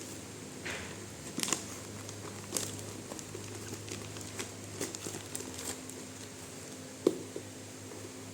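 Packaging being handled: crinkling and rustling with scattered light clicks and taps, and a sharper knock about seven seconds in, over a faint steady hum.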